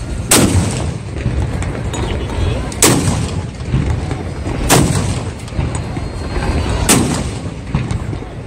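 Towed field cannons of an artillery salute firing in turn: four booms, one about every two seconds, each trailing off in a rumble.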